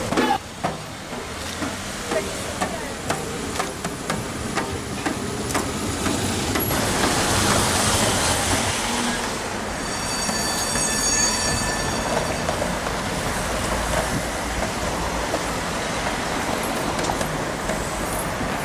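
Street traffic with a tram going by on its rails. About ten seconds in, a high squeal from the tram's wheels lasts a couple of seconds.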